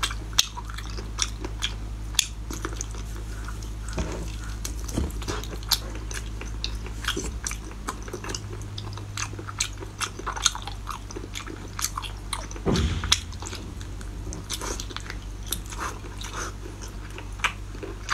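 Close-miked biting and chewing of cooked octopus tentacles: many short, wet mouth smacks and clicks at an uneven pace, over a steady low hum.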